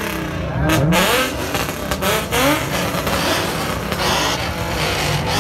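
Car engine revving in repeated quick blips, its pitch rising and falling several times, with a few sharp cracks in between.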